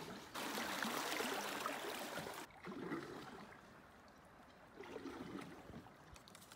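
Water trickling and splashing around a kayak on a still creek, a steady hiss that cuts off suddenly about two and a half seconds in, leaving only faint quiet ambience.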